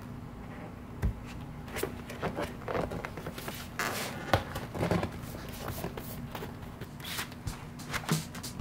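White foam floor mat panels being handled and pressed together edge to edge by hand: irregular soft knocks, rubbing and clicks, the sharpest about four seconds in.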